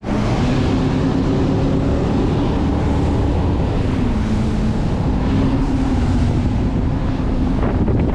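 Twin Mercury Verado 300 V8 outboards running the boat at speed, a steady engine hum under heavy wind buffeting the microphone and water rushing past the hull. The engine note dips slightly about halfway through, then comes back.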